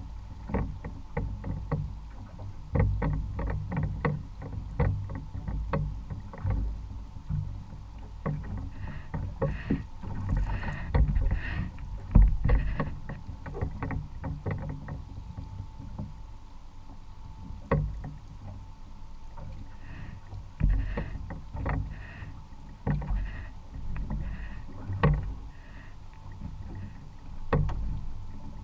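Water knocking and lapping against a small boat's hull, with irregular low thumps and short knocks. Over two spells, faint high pulses repeat about twice a second.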